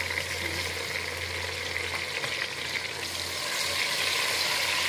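Chopped tomatoes and onions sizzling in hot ghee in a metal pot, with a steady frying hiss. A wooden spoon stirs them, scraping and clicking against the pot.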